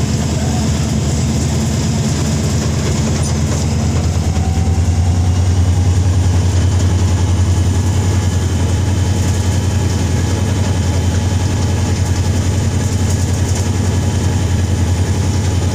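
Diesel locomotive engine running with a steady low drone, heard from the cab of the moving train, a little louder from about five seconds in.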